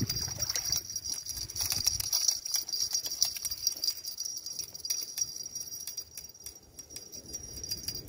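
A carp being landed on a spinning rod at the water's edge: some splashing early on, then irregular light clicking as the fish is lifted out. A steady high-pitched ringing runs in the background.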